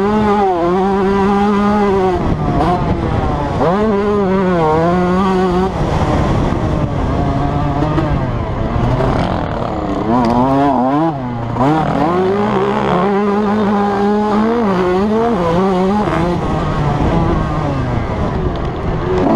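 Yamaha YZ125 two-stroke motocross engine heard from on board, revving up and dropping back again and again as the rider works the throttle and gears on a dirt track.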